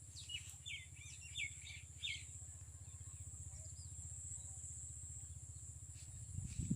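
Small bird chirping a few quick times in the first two seconds, over a steady high-pitched drone and a low hum. A few low thumps begin near the end.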